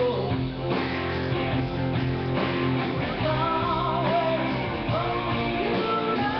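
A rock band playing live: strummed acoustic guitar with electric guitars and drums, a melodic line wavering in pitch through the middle.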